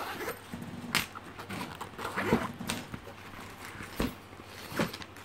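Zipper of a fabric scanner carry case being pulled open around the case in short pulls, with several sharp clicks and knocks as the case is handled.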